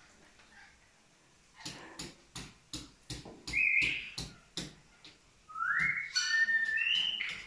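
A sulphur-crested cockatoo whistling: a rising whistle about two thirds of the way in that steps between held notes. Before it comes a run of sharp clicks, about three a second, with a short high call among them.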